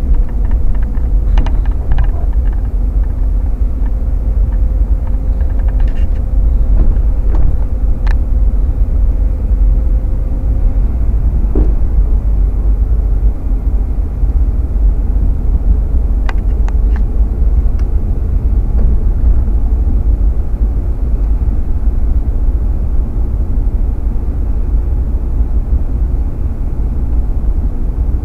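A car driving slowly, heard from inside the cabin: a steady low rumble of engine and tyres, with a few light clicks scattered through it.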